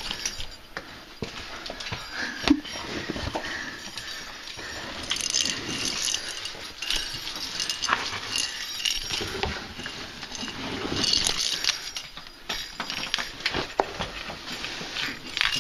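Irregular scuffs, scrapes and small knocks of people crawling and clambering over granite in a narrow boulder cave, with clothing rustling against the rock.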